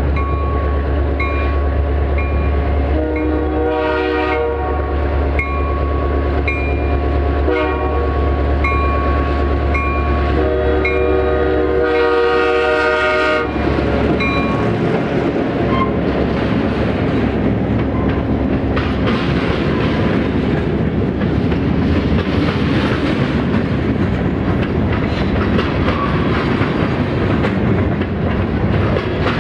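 Diesel locomotive with a non-turbocharged EMD 567 prime mover running as it approaches a grade crossing, a light bell-like tick repeating steadily while its horn sounds a long blast, a short one and a final long one. The horn stops at about thirteen seconds as the locomotive passes, and a train of covered hopper cars then rolls by with a steady clickety-clack of wheels over rail joints.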